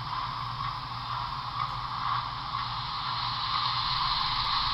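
Steady steam hiss from the onboard Paragon3 sound system of a Broadway Limited Imports HO-scale steam locomotive running on the layout, with a low hum underneath. It cuts off suddenly at the end.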